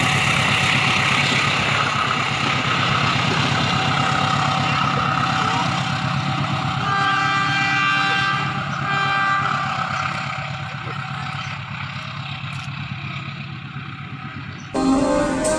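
Diesel-electric locomotive and its train running past with a loud, steady rumble, sounding two short chord blasts on its air horn about two seconds apart, the second shorter. The rumble then fades away, and music cuts in abruptly near the end.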